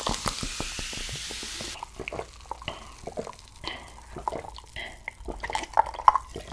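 Clear carbonated cider poured into a glass mug over ice, fizzing and crackling, stops about two seconds in. Then come scattered gulps and swallows as it is drunk from the mug, a few of them louder near the end.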